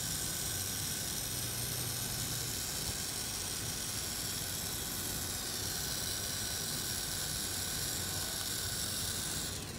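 3Doodler 3D printing pen whirring steadily, its cooling fan and filament drive running as it extrudes ABS plastic. The whir stops shortly before the end.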